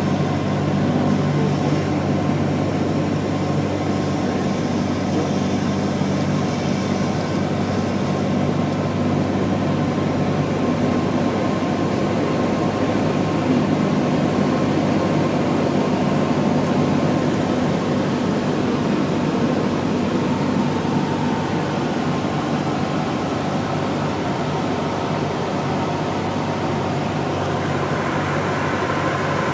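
Small single-engine propeller plane in flight, heard inside the cabin: a steady engine drone with airflow rushing over the airframe.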